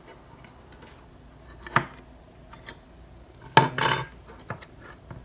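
A metal spoon clinking and scraping against an open tin can while scooping out food, in a few separate knocks with a louder clatter about three and a half seconds in.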